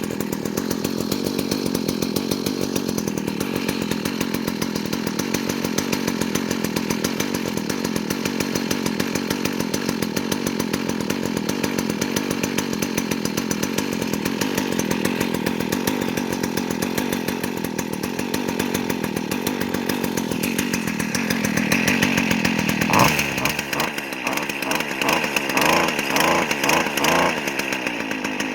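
Two-stroke chainsaw running after a cold start, left to warm up. Near the end the engine note turns uneven and pulses about twice a second for a few seconds.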